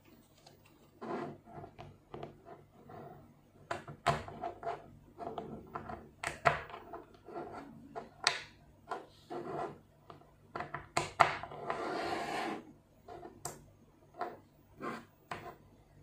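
Small 5 mm neodymium magnetic balls being handled: irregular sharp clicks as they snap together, with taps and scraping, and a longer rubbing, rolling rush shortly before the end.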